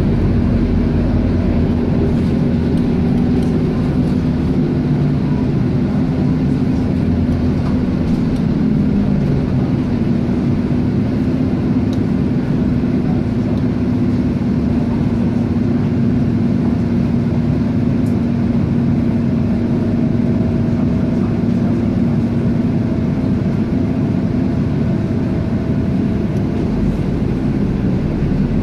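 Scania K230UB single-deck bus's 9-litre five-cylinder diesel engine running steadily, heard from inside the passenger cabin as a constant low drone with a steady hum.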